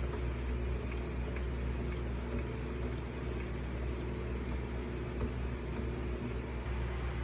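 Pioneer PL-530 turntable running with a steady low mechanical hum and faint, irregular light ticks a few times a second.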